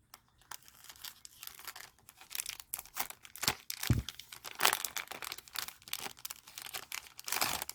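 A thin plastic jewelry pouch crinkling as it is handled and opened, in irregular crackles throughout, with one soft low knock about halfway through.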